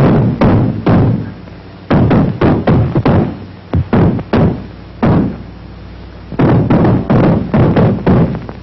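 A quick, irregular run of sharp knocks and thumps, each ringing briefly, in clusters with short lulls between them.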